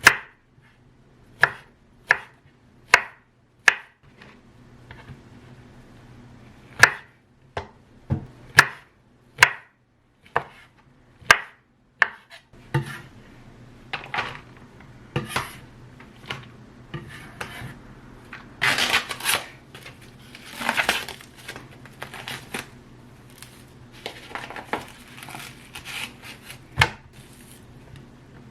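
Knife chopping on a cutting board, single sharp strokes about one a second, then softer scraping and rustling about halfway through.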